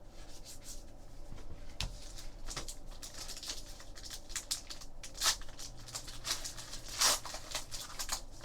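Trading card pack wrapper being torn open and the cards handled: a run of short crinkly rustles and tears, the loudest near the end.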